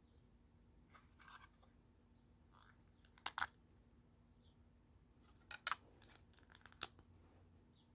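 Plastic Lego parts of a brick-built rifle clicking and rattling as the model is handled, in a few short clusters of sharp clicks, the busiest between about five and seven seconds in.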